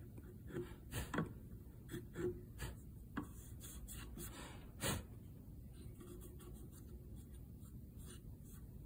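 Hand chisel paring thin shavings off the corner of a hardwood face frame to shape a round over: a series of short scraping cuts, the loudest just before five seconds in. After that only faint rubbing as fingers run over the shaped edge.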